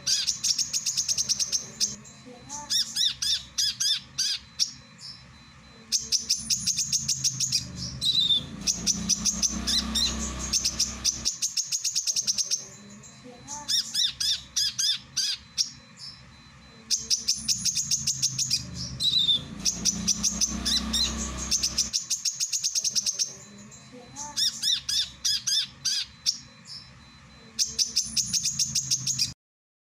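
Male brown-throated sunbird singing: bursts of rapid, high, sharp chirps and trills. The same phrase sequence repeats about every eleven seconds, as in a looped recording, and it cuts off abruptly just before the end.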